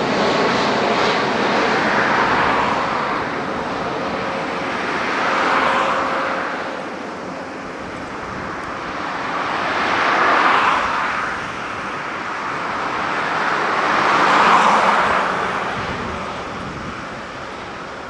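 Boeing 787-9's twin turbofan engines at climb-out thrust: a broad jet rumble receding as the airliner climbs away, swelling and ebbing in slow waves every few seconds and growing fainter near the end. A thin engine whine fades out within the first second or two.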